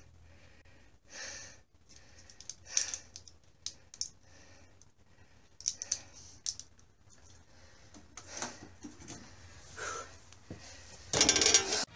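Light clicks and taps as a 3D-printed PLA+ hook-hanger is handled and hung on a wooden block. A brief louder burst comes near the end.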